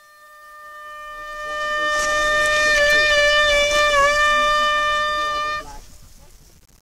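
Fox hunting horn blown in one long held note that swells in over the first two seconds, wavers briefly in pitch near the middle, and stops about five and a half seconds in.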